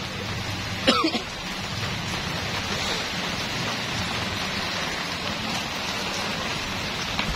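Heavy rain pouring steadily onto a flooded paved road, a constant hiss of water. A short voice sound cuts in about a second in.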